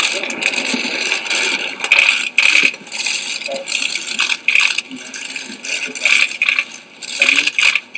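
Many camera shutters clicking rapidly in dense, overlapping bursts, as from a pack of press photographers shooting continuously.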